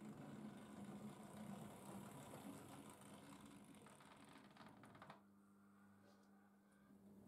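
Faint whirr of a model railway locomotive's motor and the rattle of its wheels on the track as it runs slowly with a train of coaches; the noise drops away abruptly about five seconds in, leaving a low hum.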